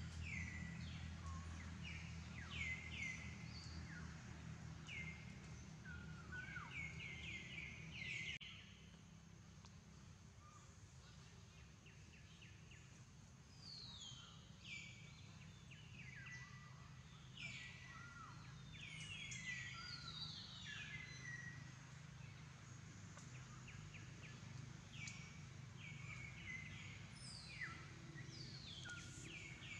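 Birds calling in the forest canopy: many short, falling chirps, repeated over and over, over a faint low hum.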